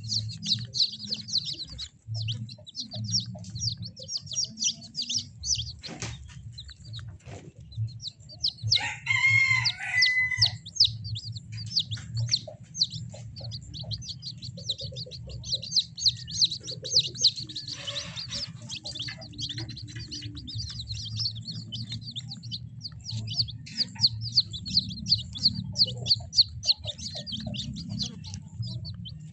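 Kampung chicks peeping and cheeping continuously in a coop, many quick high chirps overlapping. About nine seconds in comes a longer, lower call lasting a second or two.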